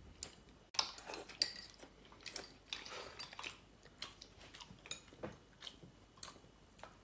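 Chopsticks clicking against ceramic bowls and plates, with chewing in between: many small, irregular clicks.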